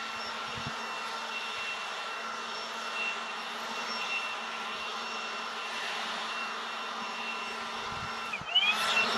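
Cordless battery-powered Milwaukee leaf blower running steadily: a rush of air under a high electric-motor whine. Near the end its pitch sweeps up and it gets louder as it is throttled up.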